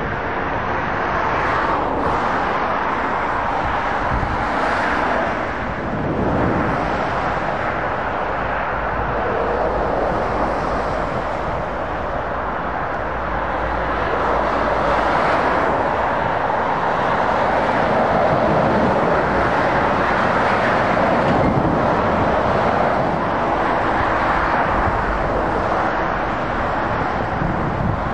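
Motorway traffic passing: a continuous wash of tyre noise and lorry and car engines, swelling and easing as individual heavy trucks go by.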